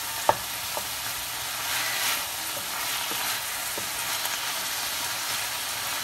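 Raw chopped chicken, ham and onion sizzling as they start to fry in a pan, stirred with a utensil. One sharp knock of the utensil against the pan near the start, then a few lighter knocks.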